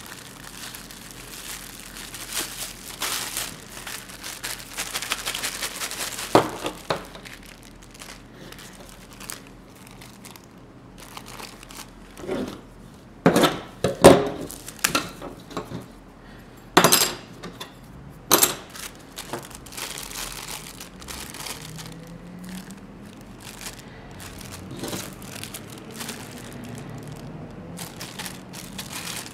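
Small plastic parts bags crinkling as they are handled and opened. About halfway through comes a cluster of sharp clicks and knocks as small parts and a knife are handled on the bench.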